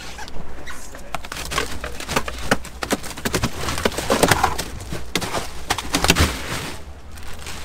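A rapid, irregular clatter of knocks and thuds on a boat deck as a freshly gaffed fish and gear are handled, over a steady low hum.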